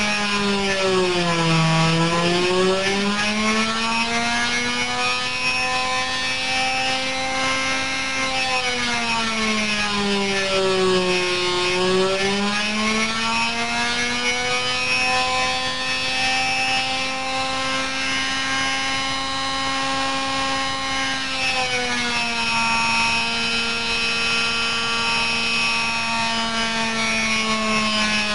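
Thunder Tiger 46 model airplane engine running flat out on a small eddy-current dynamometer, a high, buzzing whine. Its speed sags and recovers about two seconds in and again around eleven seconds in, then drops slightly for the last few seconds.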